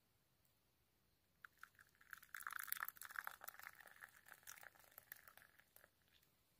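A few seconds of dense crackling and crinkling, starting about a second and a half in, loudest soon after, then thinning out before the end.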